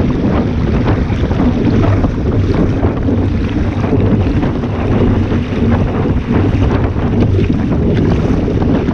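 Wind buffeting the microphone in a loud, steady rumble, with short splashes and slaps of water against a small sailboat's hull.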